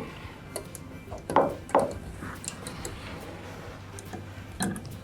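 Light clicks and knocks of window-stay hardware being handled and fitted to a wooden window frame, with two louder knocks about a second and a half in, over a faint steady hum.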